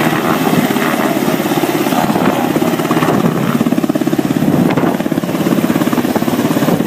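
UH-60 Black Hawk helicopter hovering low, its main rotor beating in a rapid, even pulse over the steady run of its turbines.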